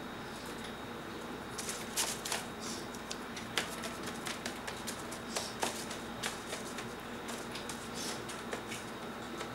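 Hands squeezing and pressing soaked crepe paper in a plastic tub of water: irregular soft squelches, small splashes and crackles starting about a second and a half in, over a steady background hum.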